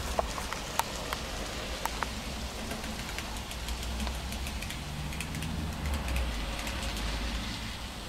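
N gauge model train running along the track, its wheels ticking and clicking over the rails, with a steady low hum underneath. A few sharp clicks stand out in the first two seconds, then a rapid patter of faint ticks.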